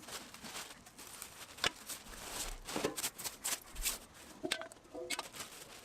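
Scattered light clicks and knocks of barbecue parts being handled during assembly.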